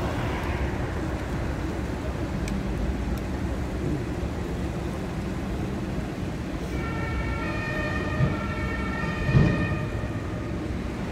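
An emergency vehicle's two-tone siren starts up about two-thirds of the way in over a steady low rumble, alternating between two pitches, with a single thump near the end.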